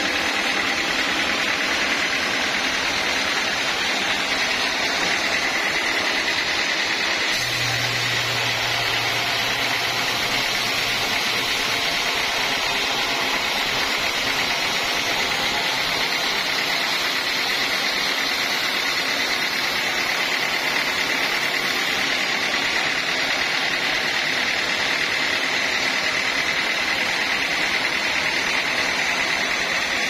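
Band sawmill sawing lengthwise through a large teak log, running steadily with a high-pitched whine and hiss. A low hum joins for a few seconds about seven seconds in.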